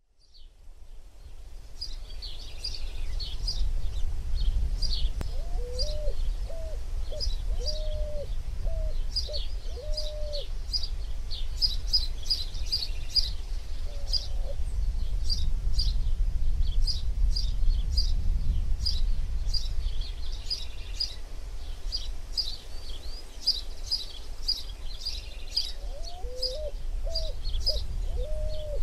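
Birds chirping and singing: many quick high calls, fading in over the first few seconds, over a low steady rumble. A lower call of short repeated notes comes in twice, about six seconds in and again near the end.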